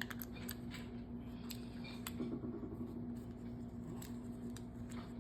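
Faint scattered clicks and scrapes of small plastic parts as the glued-in circuit board is worked out of a breast pump's housing, over a steady low hum.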